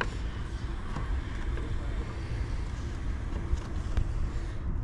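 Steady low rumbling noise with a hiss over it, and no distinct events.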